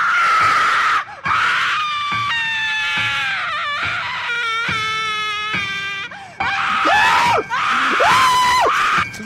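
A string of loud, high-pitched screams. A long falling wail comes in the middle and short arched cries come near the end.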